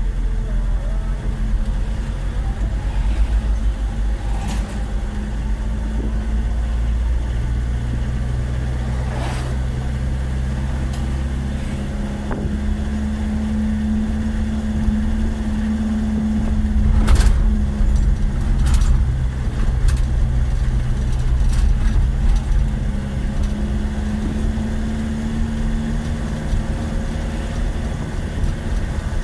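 Heavy diesel engines of road-repair machinery running steadily, their pitch shifting now and then, with a few sharp knocks a little past halfway.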